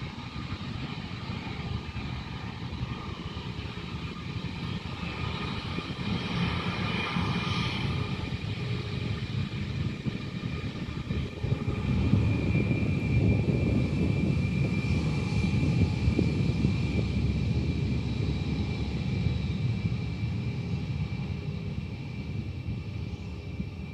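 Airbus A320 jet engines running as the airliner rolls past on the runway: a low rumble with a steady high whine. It grows loudest about halfway through as the aircraft draws level, then eases off as it moves away.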